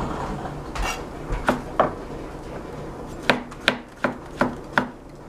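Chef's knife slicing shiitake mushrooms on a plastic cutting board: about eight sharp taps of the blade striking the board, a couple early on and then a quick run of five in the second half.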